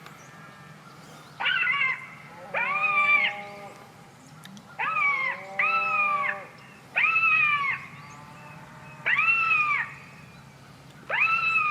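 Repeated high-pitched wailing animal distress cries, about seven in a row with short pauses between them.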